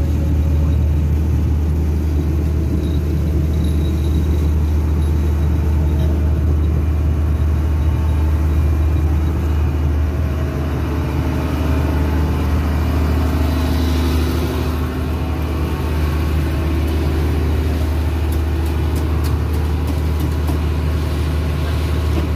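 Fishing boat's engine running steadily while the boat is underway: a constant low drone that stays even throughout.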